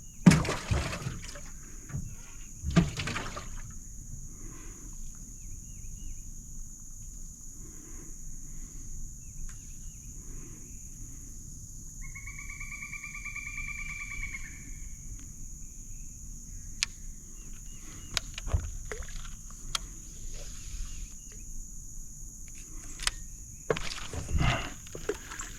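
Knocks and rustling as a caught bass is handled in a small fishing boat, loudest in the first few seconds, over a steady high insect drone. About halfway through there is a single steady tone of about two seconds, with a few sharp clicks near the end.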